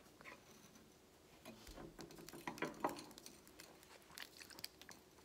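Quiet eating sounds: soft chewing of brownie and scattered faint clicks and taps of fingers on plates.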